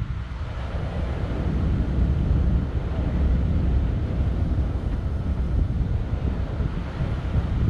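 Wind buffeting a GoPro microphone: a continuous, fluctuating low rumble.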